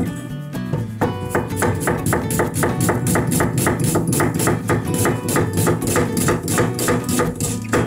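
Kitchen knife chopping an onion on a cutting board in rapid, evenly spaced strokes, starting about a second in, over background acoustic guitar music.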